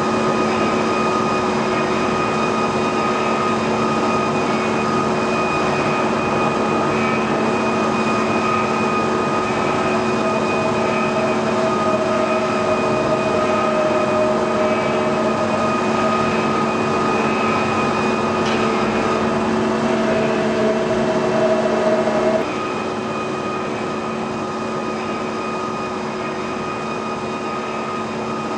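Mazak Integrex e-650H-II CNC turning and milling centre running under power: a steady machine hum with several constant tones. A higher tone comes in about ten seconds in, and the sound drops to a quieter hum about 22 seconds in.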